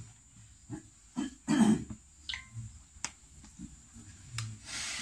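Small noises of a seated group in a small room: one loud throat-clearing about a second and a half in, a few sharp clicks, and a breathy hiss near the end.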